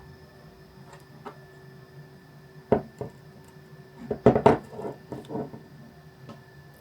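Handling noise of smartphones on a hard surface: a few sharp clicks and knocks, then a quick cluster of taps and rattles about four seconds in, over a faint steady hum.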